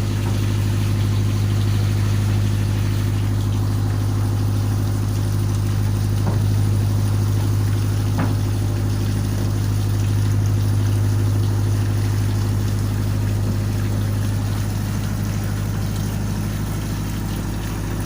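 Boat engine running steadily at idle, a constant low hum, with two short knocks about six and eight seconds in.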